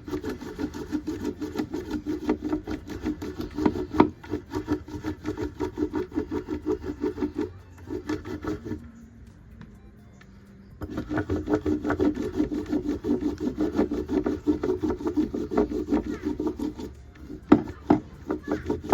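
Brass rod rubbed quickly back and forth along a freshly cut cinnamon stick to soften and loosen the bark for peeling: a steady scraping rhythm of several strokes a second. It stops for about two seconds halfway through, then starts again.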